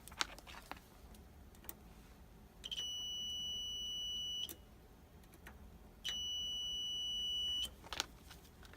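Multimeter continuity beeper sounding two steady high-pitched beeps, each about a second and a half long, as the probes touch the water heater thermostat's terminals: the beep signals continuity, a closed circuit through the thermostat.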